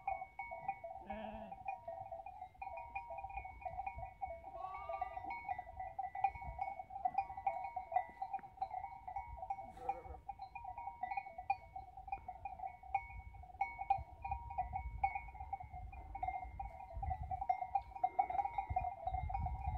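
Sheep bleating briefly, about a second in and again near five seconds, over a steady fluttering high ringing from the grazing flock.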